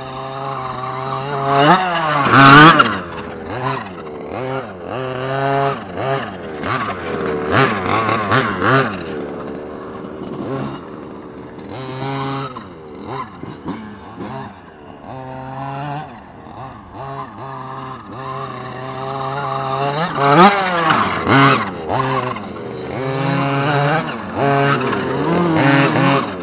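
Small two-stroke petrol engines revving hard and dropping back again and again: the Redcat Rampage MT V3 1/5-scale RC monster truck's 30cc engine as it is driven and jumped, mixed with a two-stroke dirt bike revving. The loudest revs come about two and a half seconds in and again near two-thirds of the way through.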